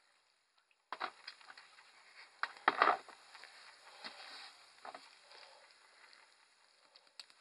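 Rabbit feeding on fresh greens: irregular crisp crunching and leaf rustling as it chews and tugs at the plants. It starts about a second in, and the loudest rustle comes about three seconds in.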